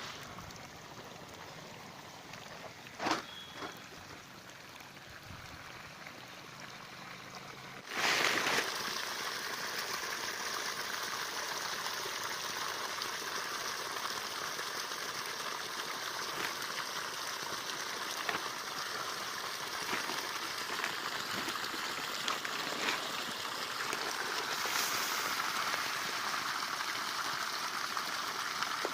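Steady rush of running water that starts abruptly about eight seconds in, after a quieter stretch with a single brief knock.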